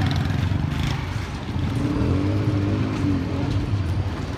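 Small motorcycle engine running close by, a steady low drone whose pitch rises and falls slightly in the middle.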